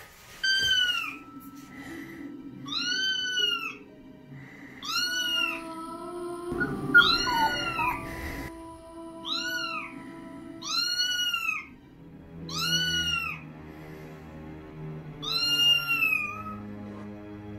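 Recorded domestic cat meows played from a speaker: about eight drawn-out meows, each rising then falling in pitch, one every two seconds or so, over eerie background music.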